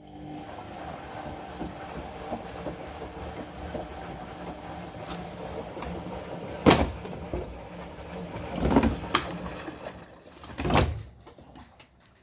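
Whirlpool integrated washing machine's drum starting to turn during the 95° heating phase of an empty drum-cleaning cycle: a steady motor hum with water moving. It is broken by three loud thumps in the second half, then dies away near the end.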